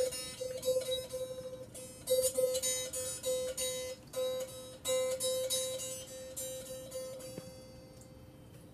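The single wire string of a homemade canjo, a tin-can one-string instrument, plucked about three times a second on one steady note while it is tuned to an open C, which the tuner reads as C4. Near the end the plucking stops and the note rings out and fades.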